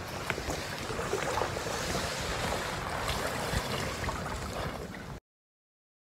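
Steady rushing outdoor noise with a few faint knocks, cut off abruptly about five seconds in.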